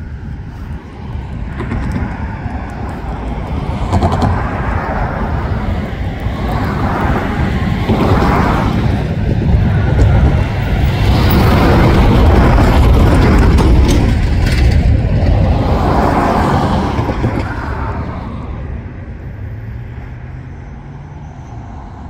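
A short freight train hauled by four GE Evolution-series diesel locomotives passing close by: a deep rumble of engines and wheels on rail that builds to its loudest about halfway through, then fades as the train moves away.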